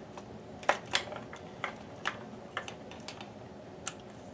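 Irregular light clicks and taps as a plastic clamp meter is handled and its jaws clamped around a wire, about eight in all, the loudest about two-thirds of a second in.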